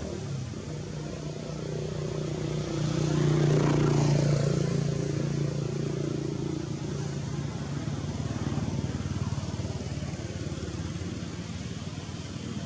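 A motor vehicle's engine running, growing louder to a peak about four seconds in as it passes, then carrying on more quietly.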